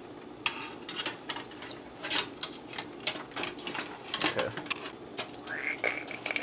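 Irregular sharp clicks and knocks of metal parts being handled: the floppy drive and its sheet-metal bracket being worked into the Macintosh SE/30's metal chassis with a screwdriver, several clicks a second.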